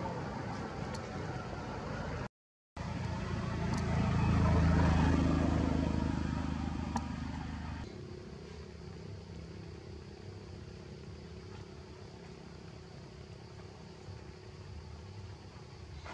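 Motor vehicle noise: a low engine rumble that swells to a peak about five seconds in and fades, like a vehicle passing. After a sudden drop about eight seconds in, a quieter steady engine hum remains.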